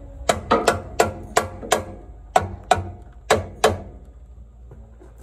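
Brass hammer tapping on the rear axle hub assembly of an Isuzu Trooper: about ten sharp metallic taps, each with a short ring, in an uneven rhythm, then stopping. The taps are meant to break the hub assembly free of the axle tube.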